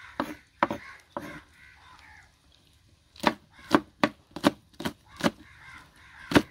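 Knife chopping green chillies: a few scattered cuts at first, then steady strokes about two a second from about three seconds in.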